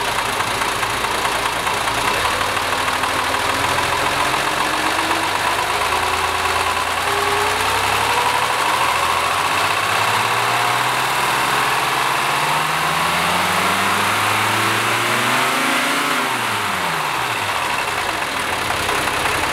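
Mercedes M180 2.2-litre single-overhead-cam inline-six, freshly balanced and fitted with new crankshaft bearings, revved by hand at the throttle linkage. It rises slowly and steadily from idle for about fourteen seconds, then falls quickly back to idle when the throttle is released near the end.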